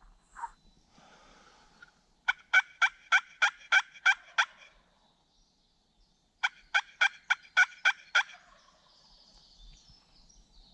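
Turkey call sounding hen yelps to a roosted gobbler: two loud series of about eight evenly spaced yelps, about four a second, a couple of seconds apart.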